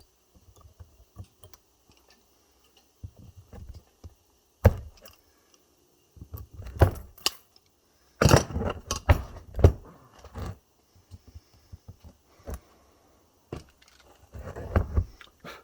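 Pliers working at an e-bike battery pack during a strip-down, gripping and pulling at the metal parts of the cell pack: irregular clicks and clattering, loudest in a cluster about halfway through.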